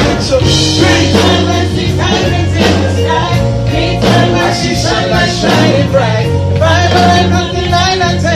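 Gospel singers with a live band, voices sliding through vocal runs over a steady bass line, amplified through microphones.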